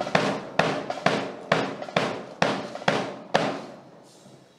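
Loud drum beats, evenly spaced at about two a second, stopping about three and a half seconds in, with their echo dying away after.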